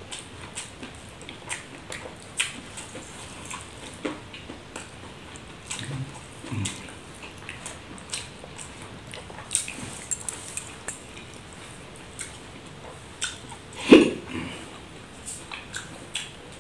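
Close-up eating sounds of a man eating rice by hand: irregular wet mouth clicks and smacks of chewing, with fingers working the rice on a banana leaf. One louder, lower sound stands out near the end.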